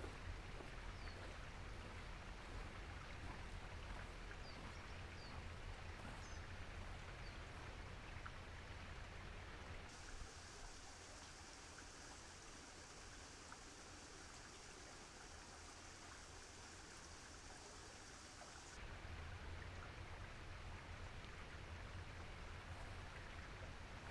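Faint winter outdoor ambience: a low rumble with a few faint, high bird chirps in the first seconds. About ten seconds in the rumble drops away and a steady high hiss takes over for about nine seconds, then the rumble returns.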